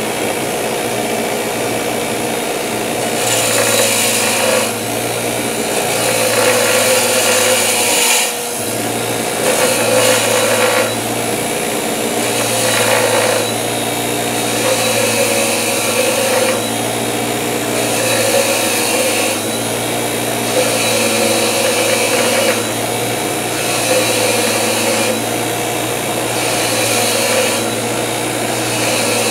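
Bench grinder running with a wire wheel scrubbing rust and built-up crud off a brush hog blade bolt: a steady motor hum, with a harsher scratching hiss that swells and eases over and over as the bolt is pressed in and turned against the wheel.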